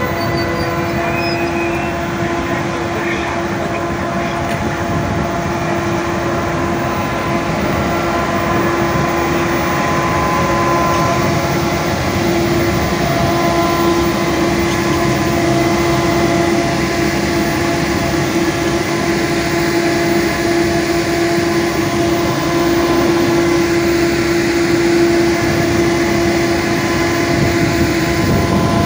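Siemens Vectron electric locomotive of class 111Eb running close by, giving a steady electrical whine of several held tones over a low rumble.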